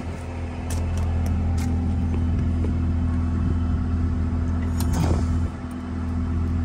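An engine idling with a steady low hum, easing off a little about five and a half seconds in, with a few light clinks and rattles of scrap metal being picked through.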